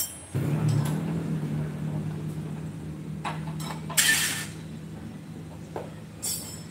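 A few light metallic clinks and a short rattle of hand tools and small parts handled at an opened motorcycle engine, over a steady low hum that slowly fades.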